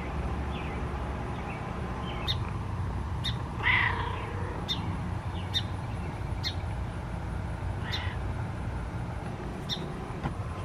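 Birds calling in the trees: two harsh squawks, about four and eight seconds in, the first louder, with short high chirps about once a second between them.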